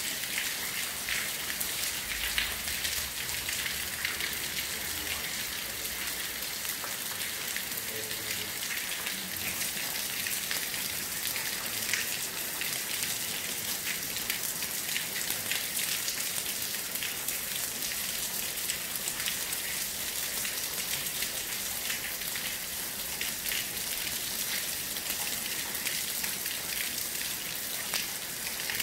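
Heavy, constant rain falling without wind: a steady hiss with a dense ticking of individual drops.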